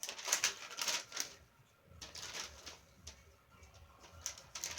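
Pet bird tearing and crinkling a sheet of paper with its beak, in bursts of short rips with brief pauses between them.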